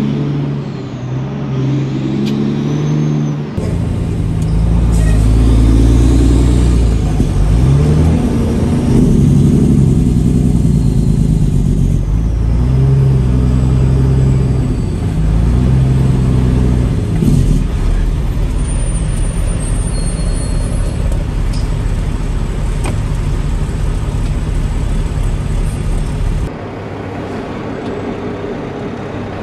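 Peterbilt 379 semi truck's diesel engine pulling under load, its pitch climbing and falling again and again as it revs up through the gears. The engine note drops to a quieter, lower level near the end.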